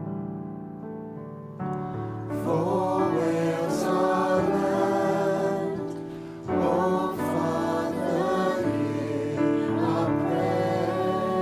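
Worship song: steady keyboard chords, with singing voices coming in about two seconds in.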